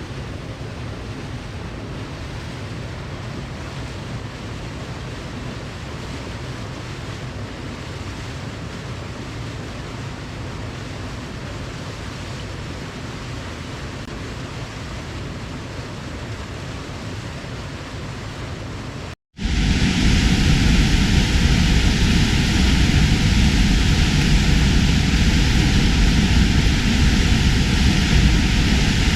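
Steady rushing water ambience, an even noise without distinct wave surges. About nineteen seconds in it cuts out for a moment and is replaced by a louder, deeper, steady rushing noise.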